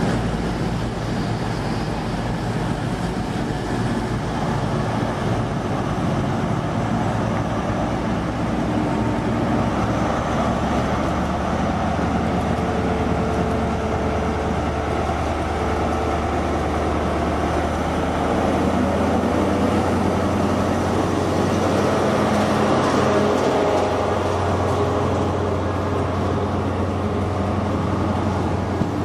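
Diesel engine of a Class 43 HST power car running steadily with a low hum, its note shifting a little about two-thirds of the way through.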